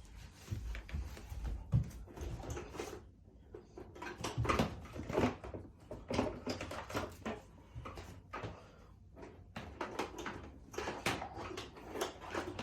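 Irregular knocks, clicks and rustling of handling as the power cords are unwound from two Hoover carpet cleaners.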